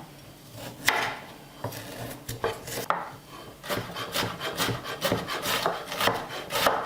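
Kitchen knife cutting a carrot on a wooden cutting board: scattered cuts at first, then a quicker run of about three or four strokes a second in the second half.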